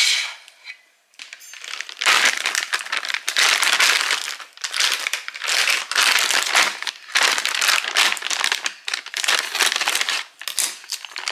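Plastic bag of frozen buttermilk biscuits crinkling and rustling in irregular bursts as it is handled, then cut open with scissors near the end.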